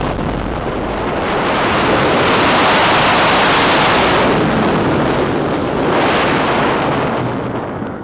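Wind rushing over an on-ride camera's microphone, mixed with the rumble of a roller coaster train. It swells to its loudest midway, then fades near the end as the train slows.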